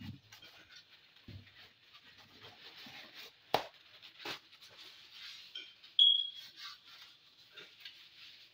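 Light rubbing and scraping as a wooden chopping board is handled and wiped with a cloth, with two sharp knocks a little over three and a half and about four and a quarter seconds in, and a short high squeak about six seconds in.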